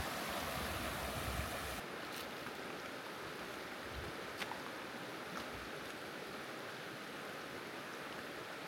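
Outdoor wind: low buffeting on the microphone for about the first two seconds, then a steady, even hiss with a few faint ticks.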